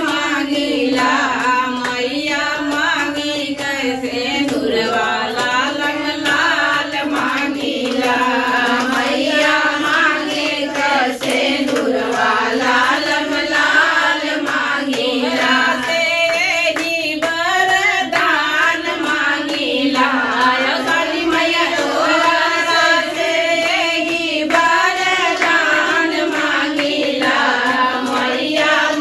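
A group of women singing a devotional folk song (devi geet) together, clapping their hands along to the beat.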